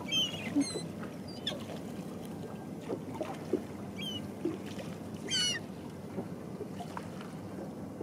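Gulls giving short, high calls several times, the loudest cluster about five seconds in, over the steady low hum of an idling boat engine.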